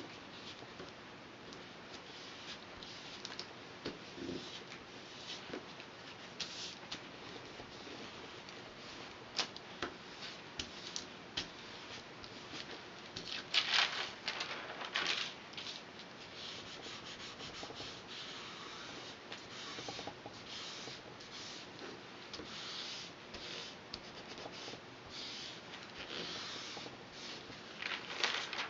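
Hands handling tracing paper and barley straw strips on a work table: soft scattered rustles and light taps, with louder paper rustling about halfway through as the tracing sheet is lifted, and again near the end.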